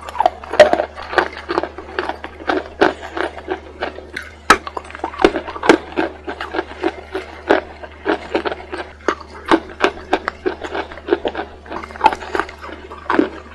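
Close-miked biting and chewing of white chalk: quick, dense crunches several times a second, over a steady low hum.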